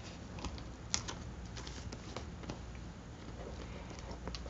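Faint handling sounds: light clicks and paper rustling as a glue stick is uncapped and rubbed onto a paper cutout.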